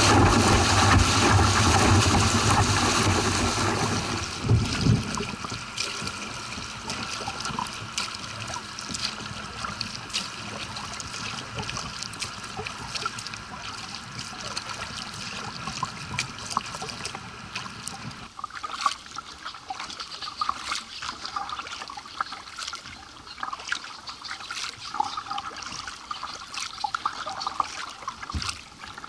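Water pouring over a small concrete weir and churning around a kayak's bow, loud for the first four seconds or so and then fading away. After that come quieter trickling and dripping water and the splashes of kayak paddle strokes.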